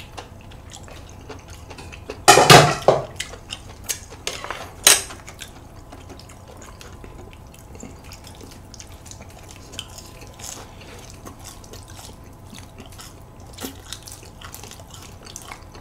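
Wet, sticky sounds of chopsticks mixing jjajangmyeon noodles in black-bean sauce, with small clicks of the chopsticks against the bowl. A louder sudden sound comes about two and a half seconds in, and a shorter sharp one near five seconds.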